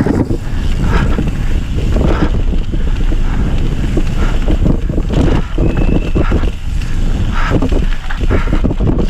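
Mountain bike descending a dirt singletrack at speed: heavy wind buffeting on the microphone, with tyres on dirt and the bike knocking and rattling irregularly over bumps. A brief high-pitched squeal a little past halfway.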